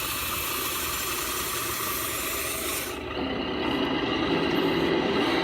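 1/14-scale RC Cat D11 bulldozer working: a rasping hiss for about three seconds, then a louder, steady mechanical running sound.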